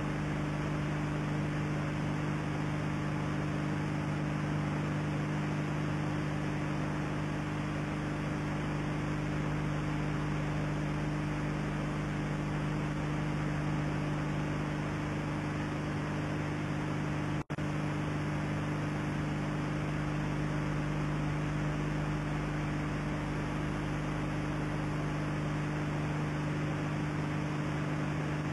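Steady electrical hum with hiss on an old analog video soundtrack. The sound drops out for an instant about two-thirds of the way in.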